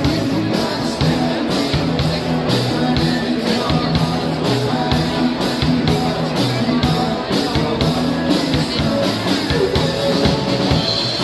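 Rock-style band music with a drum kit keeping a steady beat, guitar and some singing.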